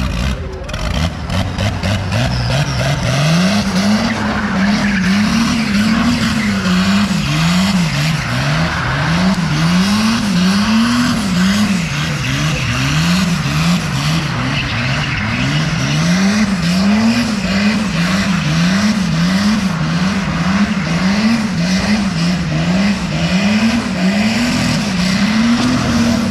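BMW sedan doing donuts: its engine revs up and down about once a second while the rear tyres spin and squeal on the pavement.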